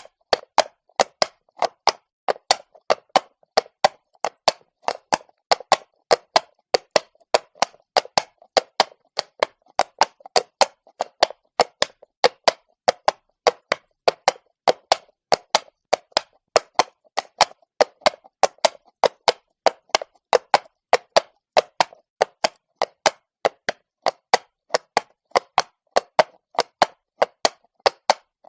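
Horse hooves striking stone at a walk: a steady clip-clop of sharp knocks, about three to four a second.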